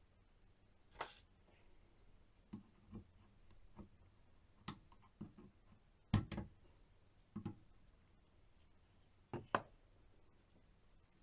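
A quiet series of separate short knocks and clicks, about a dozen, irregularly spaced; the loudest come about six seconds in and near the end.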